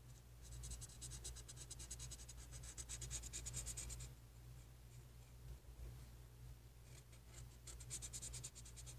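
Dark purple marker rubbing on paper in quick back-and-forth colouring strokes, a faint scratching that stops about four seconds in and starts again near the end, over a steady low hum.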